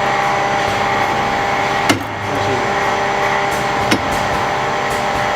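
Steady whir of running machinery with a hum of several steady tones, broken by two sharp clicks about two seconds apart.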